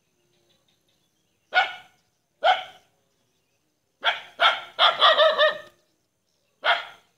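A dog barking off-camera: single barks about a second and a half and two and a half seconds in, a quick run of about five barks around the middle, and one more near the end.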